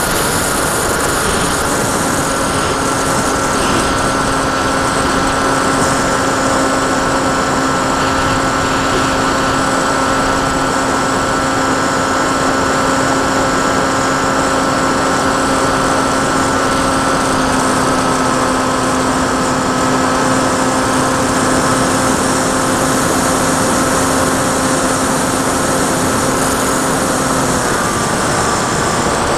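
Sky Cruiser 2400 radio-controlled model plane's motor and propeller running steadily in flight, as heard from the onboard camera, over a steady rushing noise. The pitch drops a little in small steps about a second in, around the middle and near the end.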